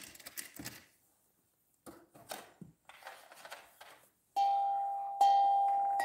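Electronic doorbell-style chime from a Barbie Dreamhouse toy: two ding-dong notes under a second apart, the second louder, each ringing on and slowly fading. Before it, light clicks and knocks of small plastic toy pieces being handled.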